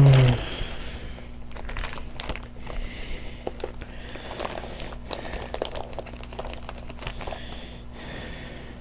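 Foil wrapper of a Pokémon booster pack crinkling as it is handled, in a string of irregular crackles.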